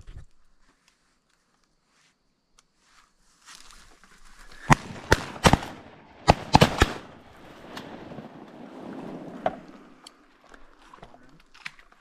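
Shotguns firing at ducks: a quick volley of about seven shots from more than one gun, starting about five seconds in, then a single further shot a few seconds later.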